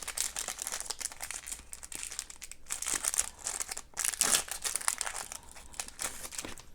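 Plastic wrapper of a 2000-01 SPX hockey card pack crinkling and tearing as the pack is opened, a dense run of crackles throughout.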